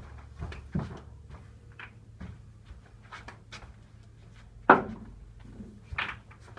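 Snooker balls being handled on the table: a sharp knock about two-thirds of the way through and a second, lighter knock near the end, with fainter taps between.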